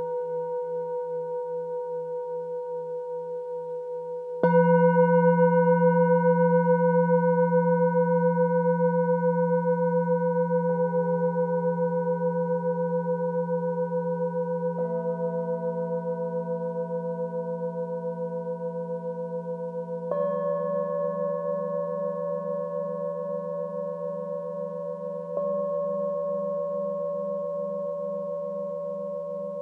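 Metal singing bowls struck one at a time with a wooden mallet, five strikes about five seconds apart. Each bowl rings on long with a slow wavering pulse, the tones overlapping and slowly fading; the loudest strike comes about four seconds in.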